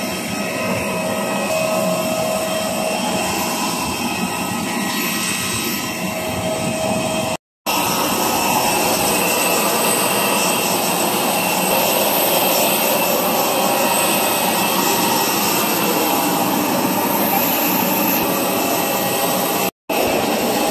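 Jet aircraft noise at close range: a steady rush with thin high whining tones through it. It drops out for a moment twice, about seven seconds in and near the end.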